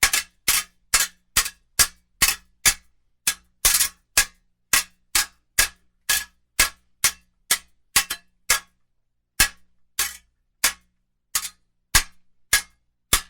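Steel swords clashing in a fight: a fast, uneven run of sharp metal-on-metal clangs, about two a second, some coming in quick pairs, each with a brief ring.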